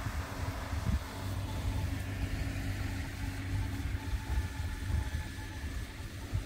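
Kubota M4 tractor's diesel engine running steadily at low revs, a low rumble with a faint steady hum.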